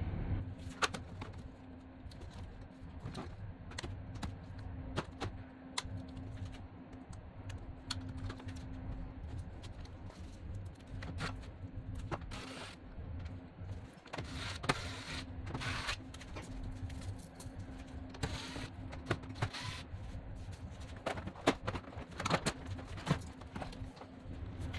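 Hand work on a pickup truck's door: scattered clicks, taps and light metallic rattles of tools and trim parts being handled, over a steady low hum.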